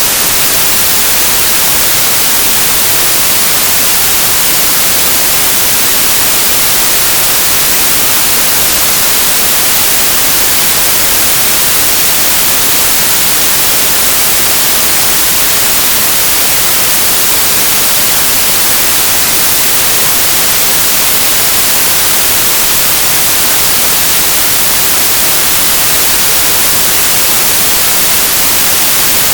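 Loud, steady white-noise hiss like static, unchanging and with nothing else in it.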